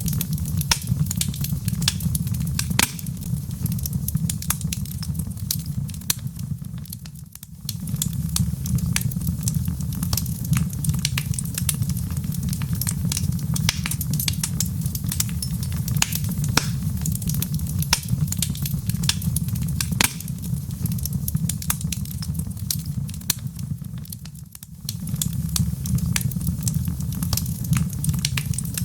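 Wood fire burning in a fireplace: irregular sharp crackles and pops over a steady low rumble. The rumble briefly drops away twice, about seven seconds in and again near the end.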